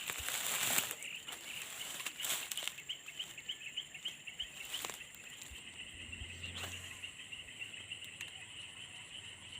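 Insects calling: a steady high-pitched drone with a fast pulsing chirp beneath it. A few brief rustling noises come in the first seconds and again around the middle.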